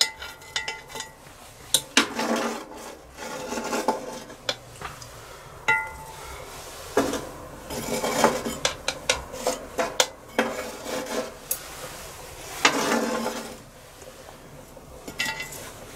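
Metal charcoal tongs clinking and scraping as glowing briquettes are picked up and set down on a cast-iron Dutch oven lid, in irregular knocks, some with a short metallic ring.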